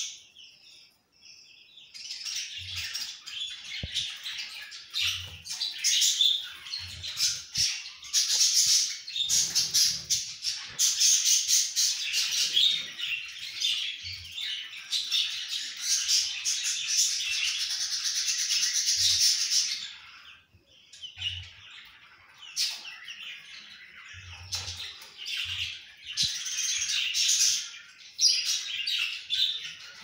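Budgie chick chirping rapidly and almost without pause in long high-pitched runs, stopping briefly near the start and again about two-thirds of the way through.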